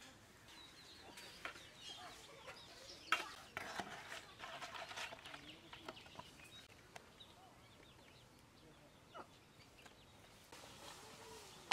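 Chickens clucking faintly in the background, mostly in the first half, with a few sharp clicks, the loudest about three seconds in.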